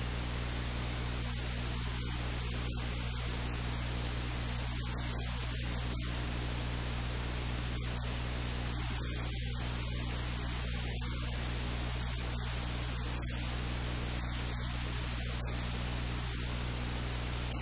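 Steady hiss with a low electrical hum: background noise of the recording, with no clear event above it.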